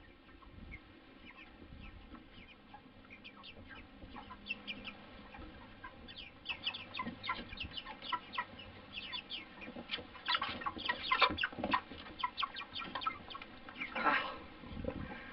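A flock of white broiler chickens peeping: many short, falling calls, sparse at first and growing busier and louder, with one louder, longer call near the end.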